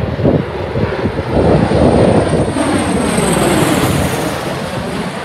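Bell Boeing V-22 Osprey tiltrotor flying low overhead, its rotors and engines growing louder about a second and a half in. The pitch falls after about three seconds as it passes.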